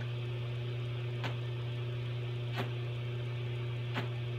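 Glassworking torch flame hissing steadily with a low hum, broken by brief soft puffs about every second and a half as breath is blown through the blow tube to inflate the hot glass bowl.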